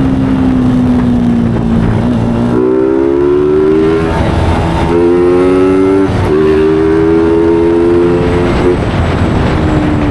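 Yamaha Sniper 150's single-cylinder four-stroke engine running loud. After a steady stretch its pitch climbs slowly in several runs, each broken off briefly, as it pulls through the gears, then falls away near the end.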